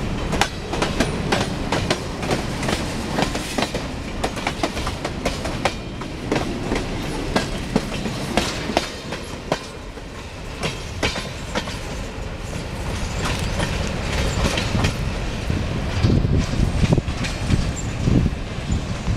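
Slow freight train of covered hopper cars rolling past, steel wheels clicking and knocking over the rail joints with a steady rumble underneath.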